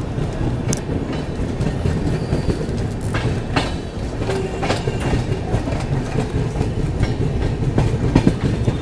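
Indian Railways passenger coach rolling along the track, heard from its open doorway: a steady rumble of the running gear with the wheels clacking over rail joints and points.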